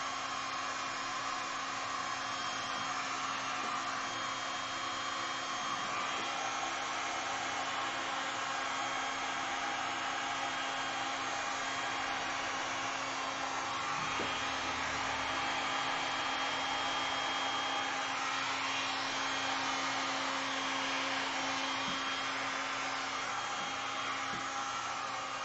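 Electric heat gun running steadily, blowing hot air over a wet epoxy resin pour, with a faint steady motor hum under the rush of air.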